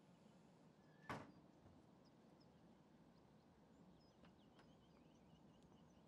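A front door shutting with one sharp knock about a second in, then faint birds chirping over quiet outdoor background.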